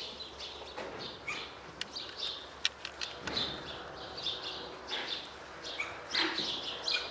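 Farmyard birds calling: short, scattered chirps and calls over a quiet background, with a couple of sharp clicks a little after a second and a half and near three seconds in.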